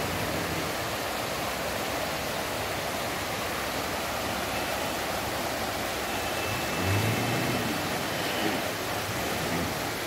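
Swollen, muddy floodwater rushing over gravel and stones in a steady, full rush: the river still running strong days after the flood. A brief low hum rises over it about seven seconds in.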